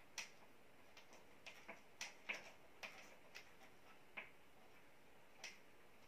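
About a dozen small, irregular clicks and taps of hands handling the wires, connectors and mounting hardware at a ceiling electrical box while fitting a new smoke detector base.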